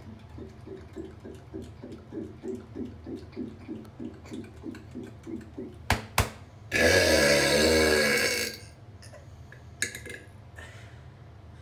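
A man's loud, long burp of nearly two seconds with a wavering pitch, about halfway through. It follows a run of soft low pulses, about three a second, and two sharp clicks just before it.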